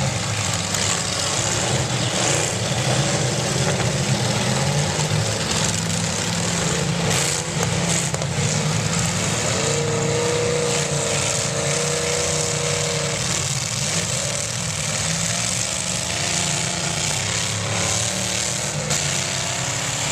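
Demolition derby cars' engines running hard in the arena, a dense steady drone. About ten seconds in, one engine revs up and holds for a few seconds. A few sharp knocks around seven seconds in.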